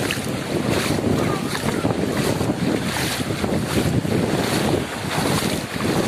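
Wind buffeting the microphone over the wash of shallow surf, with feet splashing through ankle-deep sea water at an even walking pace.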